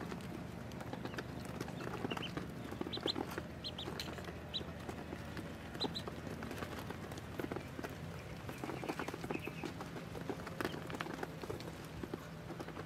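A flock of ducklings feeding: many small clicks and taps of bills pecking feed off a plate, with scattered short high peeps.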